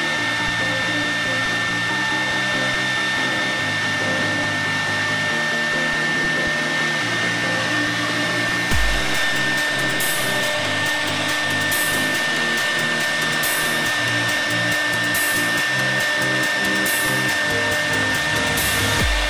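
CNC wood router carving a board: the spindle motor's steady high whine over the hiss of the cutter, with low tones that shift in pitch every second or so.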